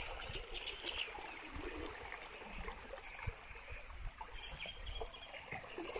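Water trickling and splashing gently at a small boat among reeds, with small birds chirping throughout.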